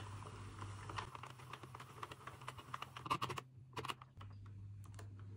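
Faint, irregular clicking and rustling of yarn being wound front and back around the plastic needles of a Sentro 48-needle knitting machine, with a few sharper clicks a little past the middle.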